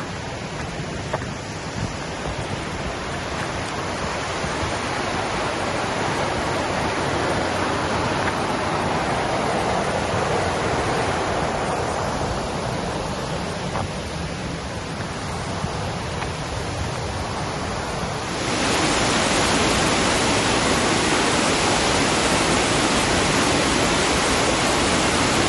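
Creek water rushing steadily, a continuous hiss and rumble of flowing water; it turns louder and brighter about three-quarters of the way through.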